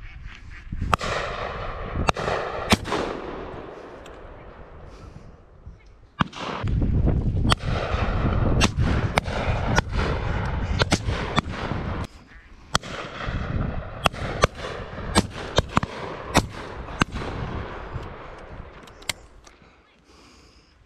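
Shotgun fire on a driven duck shoot: a rapid, irregular scatter of shots near and far, the loudest with a ringing tail, while ducks call overhead. A heavy low rumble runs under the shots through the middle.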